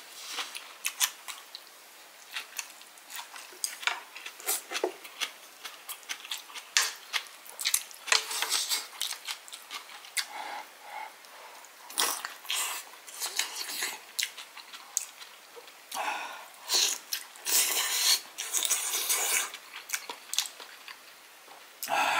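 Close-miked eating of a hot dumpling casserole: wet mouth smacks and chewing, slurps of noodles and puffs of breath blown to cool the hot food. The longer slurps and blows come about a third of the way in and again past the middle.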